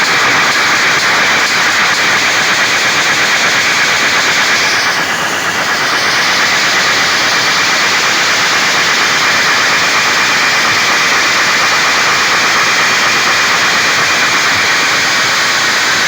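Loud, steady hiss of white noise played through a DJ sound system during a soundcheck, with a short swept dip in its upper range about five seconds in.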